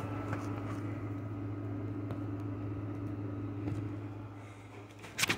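A steady low hum with a faint steady whine above it, easing a little after about four seconds, and a short knock just before the end.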